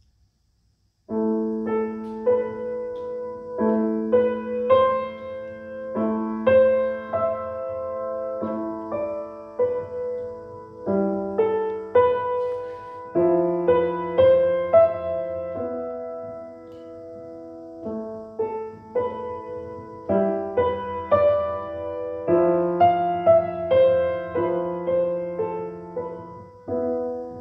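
Upright piano playing a simple beginner's piece, melody over chords struck in a steady pulse of roughly one a second. The playing starts about a second in after a brief silence.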